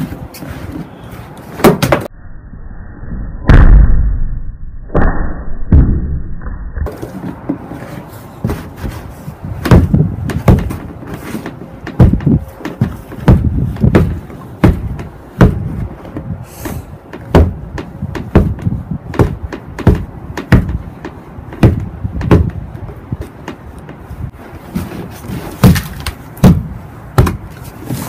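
Snow boot stomping again and again on a pocket knife lying on a snow-covered wooden deck: irregular heavy thuds about once a second, the loudest a deep thump a few seconds in.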